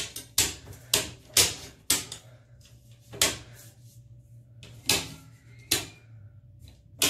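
Circuit breaker switches in a home breaker panel being flipped one after another: about ten sharp clicks, quick in the first two seconds, then spaced a second or more apart. The breakers are being reset after one tripped.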